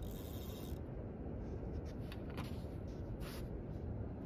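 Steady low rumble of wind and water at the shoreline, with a few short scraping, rustling sounds: a longer one at the start and brief ones about two and three seconds in.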